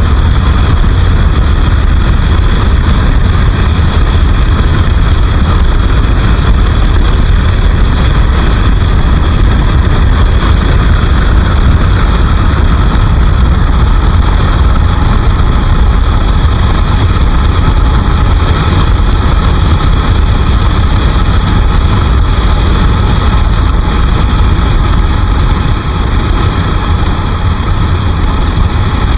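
Bajaj Pulsar RS 200's single-cylinder engine running at a steady speed while riding, under a heavy, steady wind rumble on the microphone.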